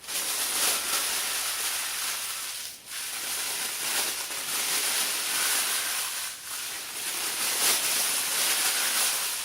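A steady hissing noise with no pitch to it, dipping briefly about three and six and a half seconds in.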